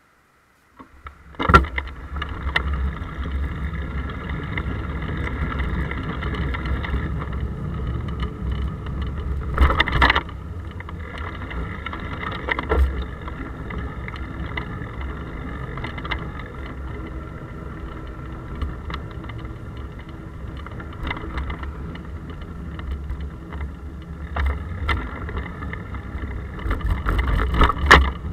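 Steady, muffled low rumble of a bicycle rolling along a road, heard through the case of a handlebar-mounted action camera. Sharp knocks sound about a second and a half in, once around ten seconds, and several times near the end, as the bike hits bumps. The rumble starts about a second in.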